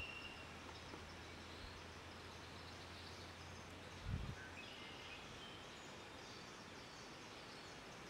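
Faint outdoor ambience: a low steady hum that stops about four seconds in, with a soft low thump at that point and scattered faint high chirps.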